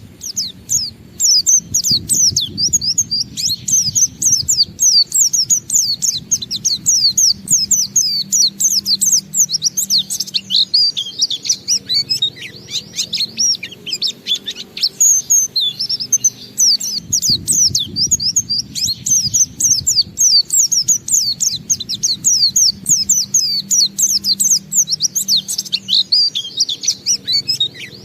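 White-eye (pleci) singing its long 'ngalas' song: a fast, unbroken stream of high, sharply falling chirps, pausing only briefly every few seconds.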